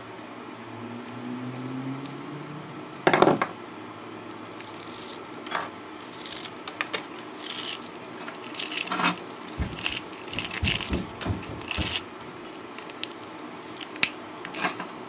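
Small metal parts from a dismantled car stereo being handled and dropped: one loud knock about three seconds in, then an irregular run of clinks, rattles and scrapes. A low hum rises in pitch over the first two seconds.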